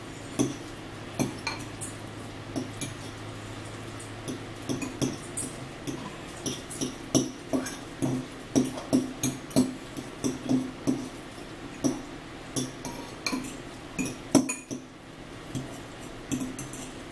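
Eating sounds: a metal fork clinking and scraping in a bowl of spaghetti, with chewing, heard as many short, irregular clicks and taps, about one or two a second.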